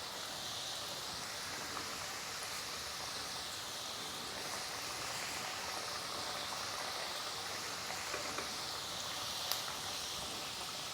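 Wheat-flour snacks deep-frying in hot oil: a steady sizzle with an occasional faint pop.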